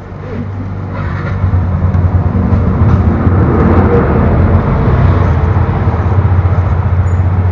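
A motor vehicle's engine running close by with a steady low hum. It grows louder over the first second or so, then holds steady and cuts off abruptly at the end.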